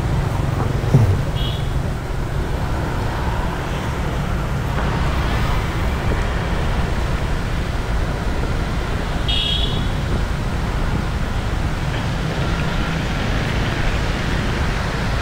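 Steady road and traffic noise on a rainy city street, heard while riding, with a low rumble underneath. Two short high beeps stand out, one about a second and a half in and another near the middle.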